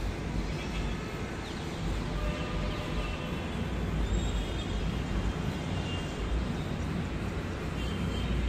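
Steady hum of distant city traffic heard from high up, with wind rumbling on the microphone and a few faint high tones, like far-off horns, coming through.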